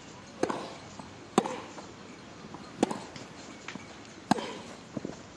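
A tennis rally: a ball struck by rackets four times, about a second and a half apart, with fainter ticks between the strikes.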